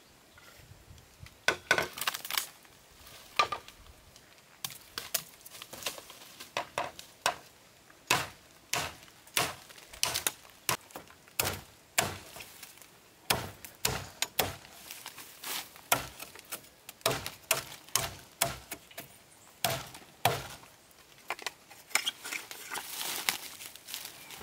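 A machete chopping into the base of a living green bamboo culm: a long run of sharp blows, about one or two a second, beginning about a second and a half in.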